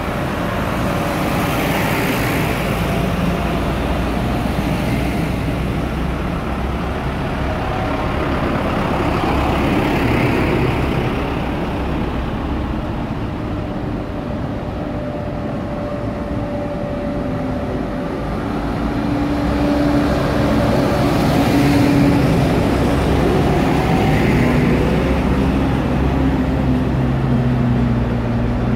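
Farm tractors' diesel engines as the tractors drive past one after another, the sound swelling as each goes by, with a car passing among them.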